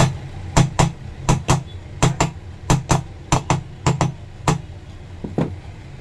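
Ceiling fan motor's back cover being tapped down over its new ball bearing with a small hammer: about fifteen sharp taps, mostly in quick pairs, until about five and a half seconds in. The cover is a tight fit and is being driven until it seats.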